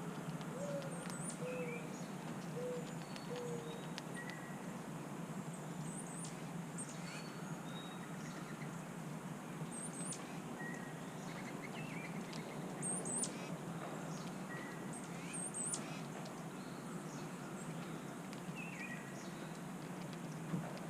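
Wild songbirds calling: scattered short, high-pitched chirps and twittering notes, over a steady low background rumble.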